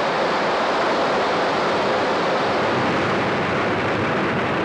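Falling water of a large waterfall, rushing as one steady, unbroken noise.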